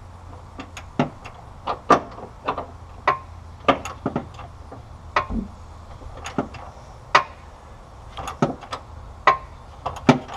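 Ratchet wrench turning a shock bolt a single click per short stroke: sharp metallic clicks and knocks, about one to two a second in an uneven beat.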